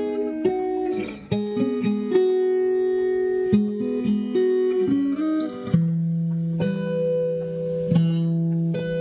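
Background music played on guitar: plucked and strummed chords that change every second or so.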